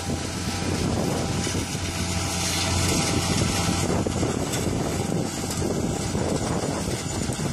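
New Holland 3550 AL combine harvester running steadily while harvesting sunflowers: a low engine hum under a broad, even mechanical rush.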